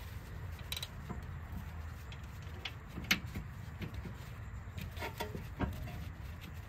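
Light metallic clicks and knocks as the 8th-generation Honda Civic's rear brake caliper is handled and seated over the new pads, the sharpest about three seconds in, over a low steady background hum.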